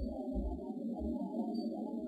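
Heavily noise-reduced outdoor field recording: an uneven, warbling murmur in the low and middle range with irregular deep thumps, which the uploader takes for the low-toned voices of Sasquatch.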